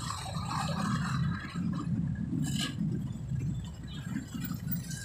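Slow road traffic with a dump truck's engine running close by, a steady low rumble. A short hiss comes about two and a half seconds in.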